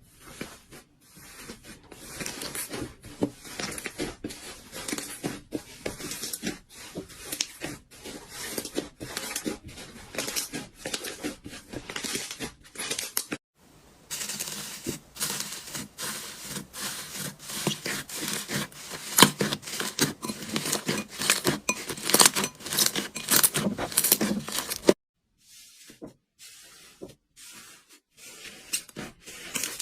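Slime being squished and kneaded by hand, giving a dense run of wet clicks, pops and crackles, with abrupt breaks about a third of the way in and again near the end.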